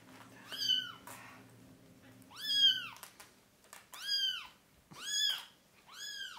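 Small kitten mewing five times, each high-pitched mew rising and then falling in pitch, the second the loudest; the rescuer holding it takes the crying for hunger.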